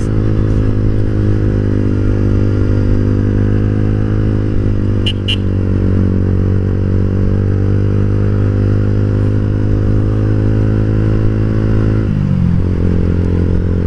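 Yamaha Vixion's single-cylinder four-stroke engine running at a steady cruising speed on the road, heard from the rider's seat with wind noise. About twelve seconds in, the engine note drops as the throttle eases off.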